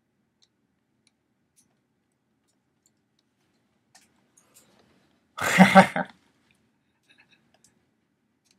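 A man's brief vocal outburst, under a second long, about five and a half seconds in, with a few faint clicks of tissue paper and plush being handled before it.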